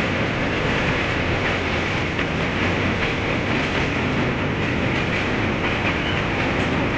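Passenger train running across a steel girder bridge, heard from aboard: a loud, steady rumble and rattle of wheels on the rails.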